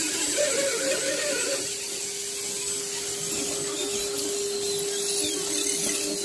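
Electric motor and gears of an RC scale crawler truck whining steadily as it crawls, the pitch wavering during the first second and a half.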